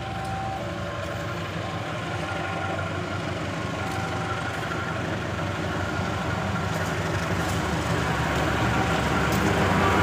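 CC 201 diesel-electric locomotive approaching with carriages, its engine drone growing steadily louder as it nears.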